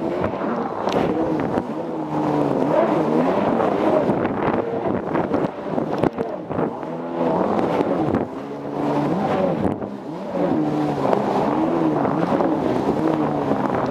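Jet ski engine running under way, its pitch rising and falling again and again as the throttle is worked, dipping briefly about six and nine seconds in.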